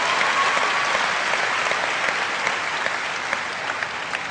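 Large audience applauding, the clapping slowly dying down toward the end.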